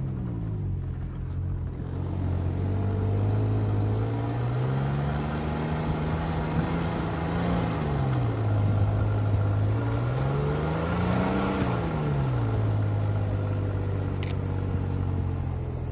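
Toyota Tacoma pickup's engine pulling at low speed through snow, its revs rising and falling back twice.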